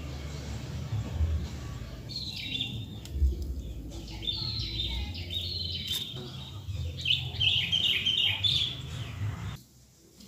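Small birds chirping in runs of quick, falling notes over a steady low rumble; the sound drops away suddenly near the end.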